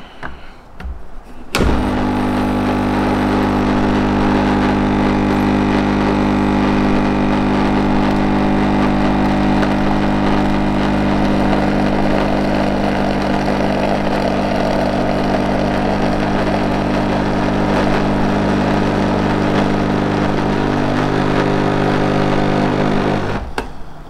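Petrus PE3320 espresso machine's vibration pump switching on about a second and a half in and buzzing steadily while it pulls an espresso shot, then cutting off just before the end.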